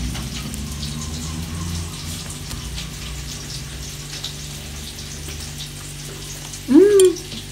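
Steady sizzling hiss of food frying in a pan. Near the end comes one short vocal sound from a person, rising and falling in pitch.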